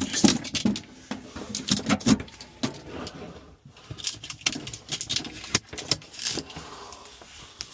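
Irregular clicks, taps and rustling of small objects being handled and set down, with no steady machine sound.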